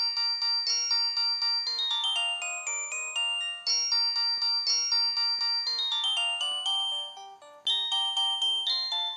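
Preloaded polyphonic ringtone of an LG VI125 cell phone playing: a synthesized melody of quick, sharply struck notes with a falling run about two seconds in. It drops away briefly about seven and a half seconds in, then the melody starts again.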